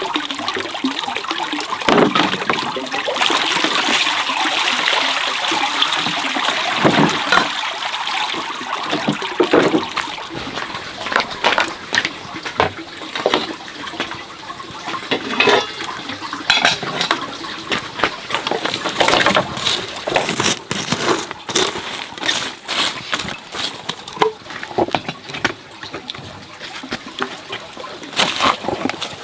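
Water running steadily for the first several seconds, then splashing and sloshing with many short knocks and clatters, as of things being handled in water.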